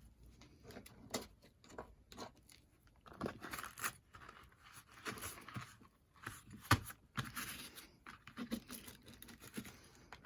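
Paper and craft materials being handled: intermittent rustling and scraping, with one sharp click or tap about two-thirds of the way through.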